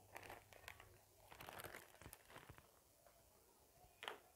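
Faint rustling and crinkling as flour is handled and a plastic sieve is brought over a steel mixing bowl, with one sharp tap near the end.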